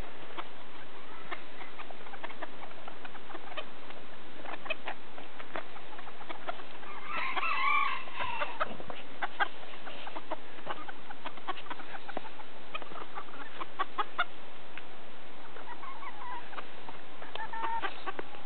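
Bantam chickens clucking with many short sharp ticks while foraging. About halfway through, one bird gives a louder call lasting a second or so, and fainter calls come near the end.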